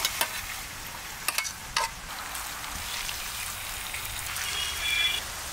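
Chicken frying in olive oil in a pan, a steady sizzling hiss, with a few sharp clicks of metal tongs against the pan in the first two seconds.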